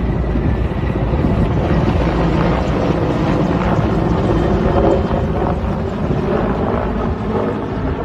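Strong wind buffeting the microphone: a loud, steady rushing rumble.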